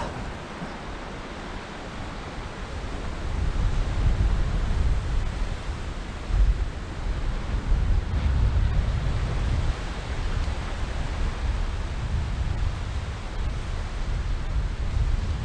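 Wind buffeting the microphone in gusts, a low rumble that picks up a few seconds in, over a steady hiss of surf.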